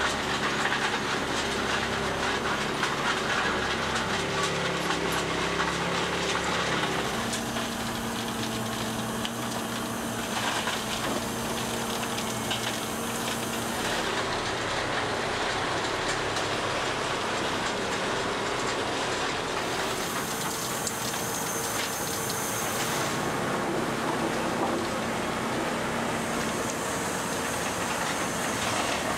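Plasser & Theurer SFM Compact ballast regulating machine working on track: a steady engine hum under a dense hiss and clatter. The sound shifts in character several times as the shots cut between the plough, the sweeping unit and the stabilisers.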